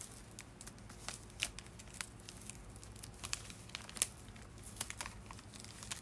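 White packing paper crinkling and tearing as it is unwrapped by hand, in irregular crackles with a few sharper snaps, the sharpest about four seconds in.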